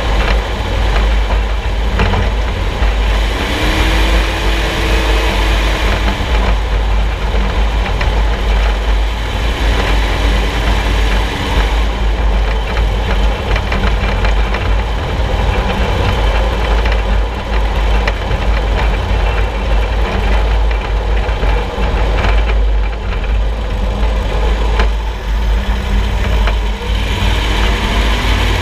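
Driving noise picked up from under the front of a solid-axle vehicle: heavy low rumble with road and tyre noise, and occasional short knocks from the front suspension, the noise being chased.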